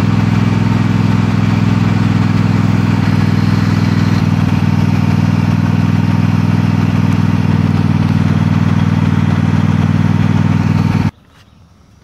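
Lawn mower's small engine running at a steady speed, cutting off suddenly near the end.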